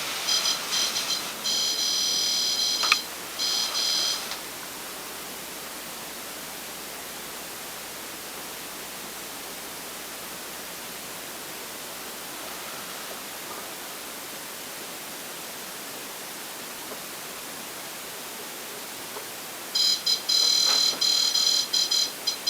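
Electronic beeping: choppy, high-pitched, several tones at once, in a burst of about four seconds, then a faint steady hiss, then another burst near the end.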